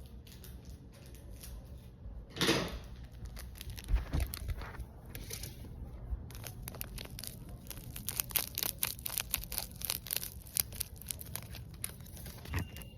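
Hands stretching and squishing glitter slime. There is a loud tearing stretch about two and a half seconds in and a few dull thumps around four seconds, then a long run of quick crackling clicks in the second half.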